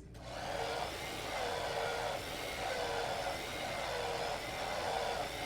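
Hand-held hair dryer switched on and blowing steadily for about six seconds, with a faint motor whine, then switched off.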